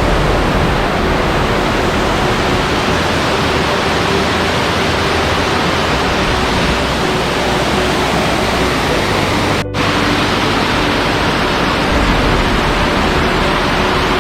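Waterfall pouring over a rock face into a pool, a loud steady rush of water. It breaks off for an instant a little under ten seconds in.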